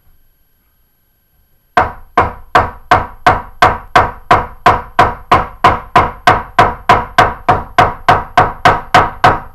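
A hammer striking in a fast, perfectly even rhythm, about three blows a second and some twenty in all, each blow ringing briefly at the same pitch. The strikes begin about two seconds in and stop near the end.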